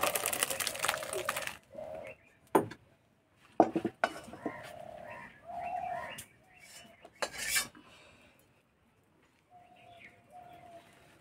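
Metal spatula scraping thick masoor dal out of a wok into a steel bowl: a loud rasping scrape for about a second and a half, then a few scattered clinks of metal on metal. Pigeons coo softly in between.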